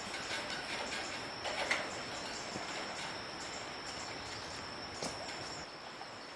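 Forest ambience: a steady high-pitched insect drone with a few short bird calls, the loudest about a second and a half in.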